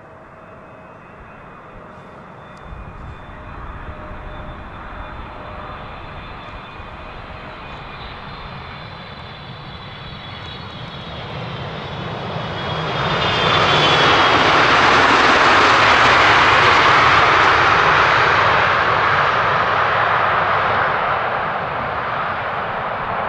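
Boeing 777-300ER's GE90 jet engines: a steady high whine grows louder on the landing approach. About thirteen seconds in, as the airliner touches down and rolls out, a loud even jet roar swells and holds, then eases a little near the end.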